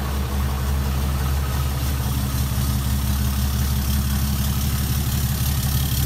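Ram pickup truck's engine idling steadily, heard from beside the truck and at the exhaust tip. It runs on a freshly replaced air filter and sounds a lot healthier.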